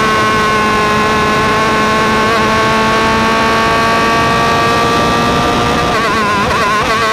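Atlantic open-wheel race car's engine running hard at high revs, heard from on board, its pitch holding nearly level. Near the end the note wavers and dips.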